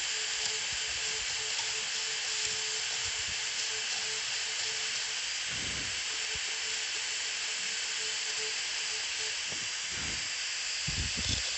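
High-speed dental handpiece running with a steady hiss as a small inverted cone bur cuts the cavity outline in an upper first molar, with a few low knocks about halfway and near the end.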